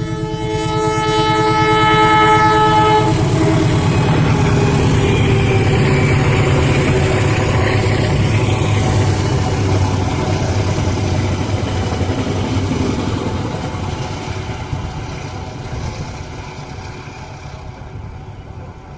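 Diesel locomotive horn sounding for about three seconds, then the passenger train running past, loudest in the first half and fading away over the last several seconds.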